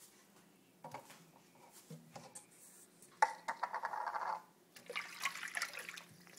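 Faucet water splashing into a stainless steel sink and over a small dog's wet fur as it is washed by hand. It comes in two bursts, starting suddenly about three seconds in and again about five seconds in.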